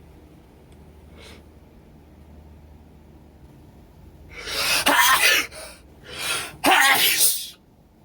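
A person with a head cold sneezing twice, loudly, about two seconds apart, with a shorter breath between the two sneezes.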